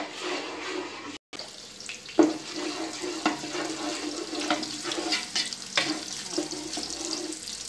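Chopped garlic sizzling in oil in a metal pot, stirred with a wooden spoon that scrapes and knocks against the pot again and again. The sound cuts out briefly about a second in.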